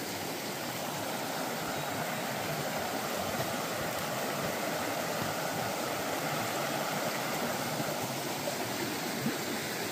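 A river flowing: a steady, even rush of water.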